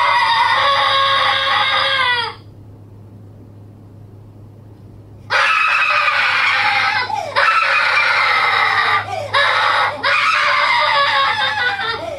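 Sped-up, pitched-up human screaming: long, loud, sustained screams that trail off with a falling pitch. About two seconds in they stop, leaving a low hum for about three seconds, then the screaming resumes in repeated long screams separated by short breaks for breath.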